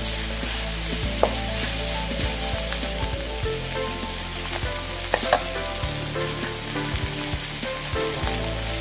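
Chicken and long beans sizzling as they sauté in a hot wok, stirred with a wooden spatula, with a couple of sharp knocks of the spatula against the pan about a second in and again past the middle.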